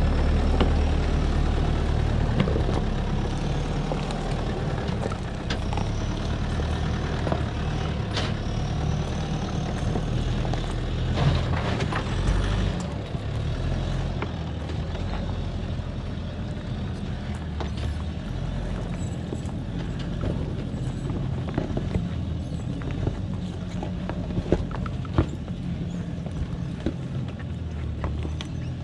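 Toyota Prado 4WD's engine running under load as it crawls up a steep rocky track, with occasional sharp knocks from tyres on loose rock; the engine gradually fades as the vehicle climbs away.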